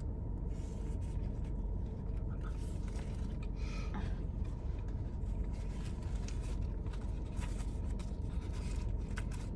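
Steady low rumble of a car's cabin, with faint rustling and small scattered clicks as people eat.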